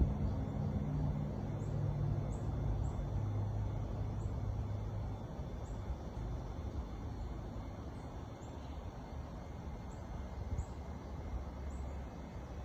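Low rumble of a distant engine, slowly fading away, with faint short high chirps now and then.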